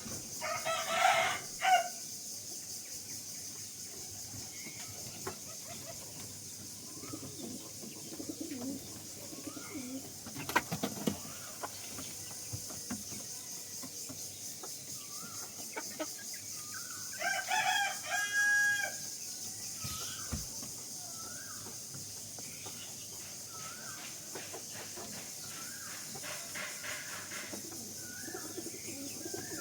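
Fayoumi chickens: one loud, harsh call about a second in, a rooster crowing once past the middle, and short chirps and clucks in between, over a steady high hiss.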